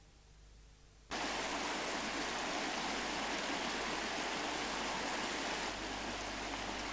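Shallow brook running over rocks: a steady rushing of water that starts suddenly about a second in.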